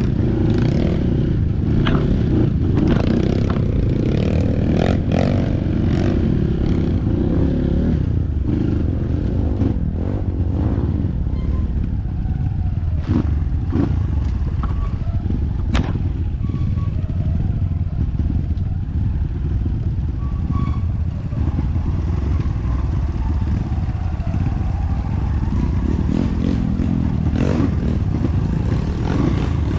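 Trail motorcycle engine running steadily at low revs on rough off-road ground, with scattered clattering knocks from the bike.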